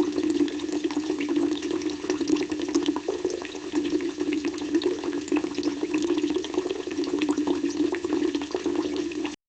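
Fish sizzling as it grills: a steady hiss dotted with many sharp crackles and pops, over a low steady hum, cutting off suddenly near the end.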